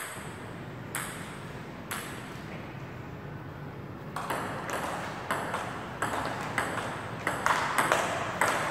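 Table tennis ball clicking off the paddles and table: three single taps about a second apart, then from about four seconds in a quick rally of clicks, several a second, ringing a little in the hall.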